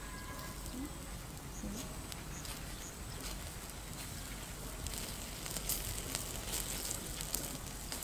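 Open wood fire crackling, with scattered sharp snaps that come thick and fast in the second half.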